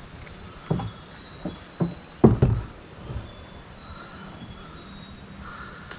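Insects droning steadily in mangrove vegetation, with a few short thumps about a second to three seconds in, the loudest a little past two seconds.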